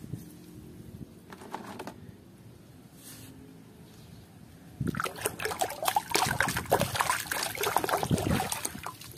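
Water in a plastic tub being swished and splashed by hands washing a mud-covered plastic toy. It trickles faintly at first, then turns into busy, irregular sloshing and splashing from about halfway through.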